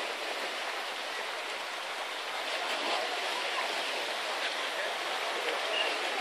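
Steady rushing hiss of sea water washing against a pier and rocks, even throughout.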